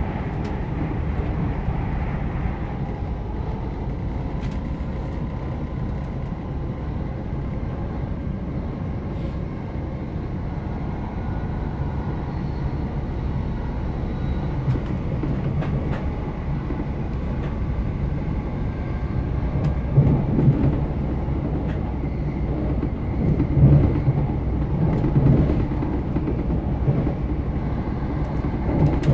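Great Western Railway Class 387 electric multiple unit running at speed, heard from inside the coach: a steady rumble of wheels on the rails with a faint steady whine above it. The rumble swells louder several times from about two-thirds of the way through.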